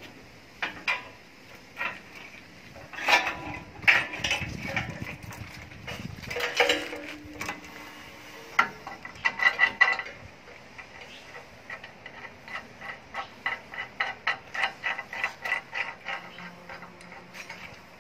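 Metal clanks and clicks from the roller chain and sprocket of a mobile concrete block machine being worked by hand. They come irregularly at first, then as an even run of about three clicks a second in the second half.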